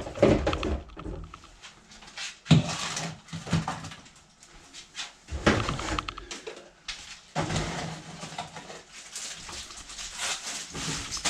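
Irregular clatter and rustle of food packages and containers being taken out of a fridge and set down, with several sharper knocks.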